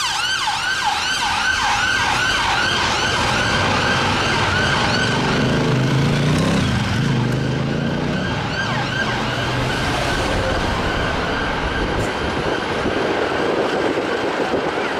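Fire engine siren on a fast yelp, about three sweeps a second, fading away over the first several seconds, leaving road traffic noise.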